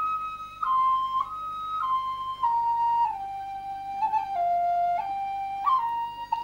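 Background music: a flute playing a slow melody of held notes that step down and then climb back up.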